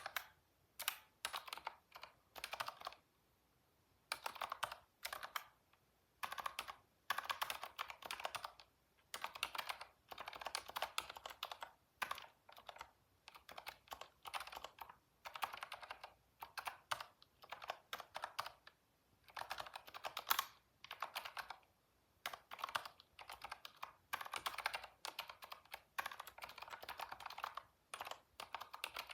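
Typing on a computer keyboard, in quick runs of key clicks broken by short pauses of a second or so.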